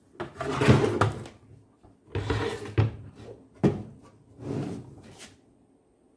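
Handling noise from a UTL solar SMU (solar charge controller unit) being slid and turned over on a wooden tabletop with its cables dragging: four short bursts of scraping and rubbing, with a sharp knock about three and a half seconds in.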